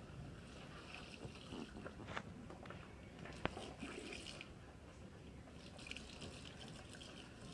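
Tap water running faintly into a stainless steel sink, splashing as wet dyed fabric is squeezed and turned under the stream, with one sharp click about three and a half seconds in.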